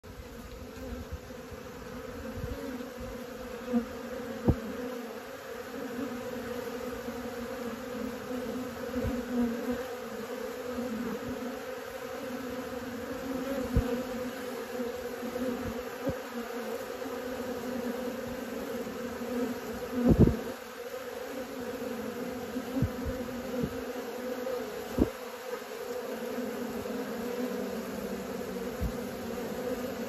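Honeybees buzzing in a steady hum at the hive entrance, many crawling and some flying. A few brief knocks break in, the loudest about twenty seconds in.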